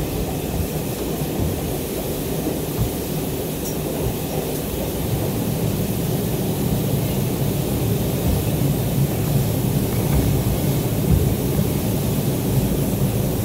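R142 subway car running along the track, heard from inside the car as a steady rumble of wheels on rail that grows slightly louder toward the end.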